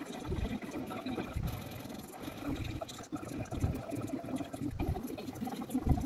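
Laundry being handled and folded on a table: fabric rustling and shaking, with irregular soft thumps as the cloth is moved and set down.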